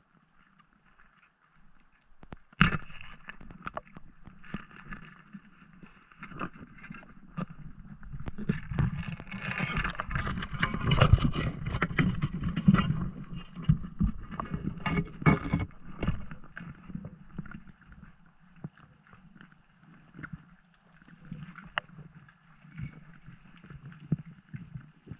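Underwater sound around a breath-hold diver: water rushing past the camera with scattered clicks and knocks, loudest through the middle, plus one sharp knock early.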